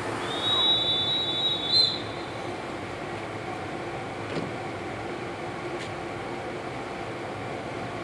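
Steady hum of a standing EU44 electric locomotive and its train. A loud, high-pitched, steady squeal lasts about a second and a half near the start.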